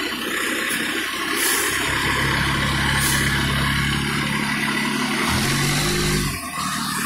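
Fire engine's diesel engine running as the truck moves off close by. Its note steps up in pitch a little after five seconds in, then drops away abruptly about a second later.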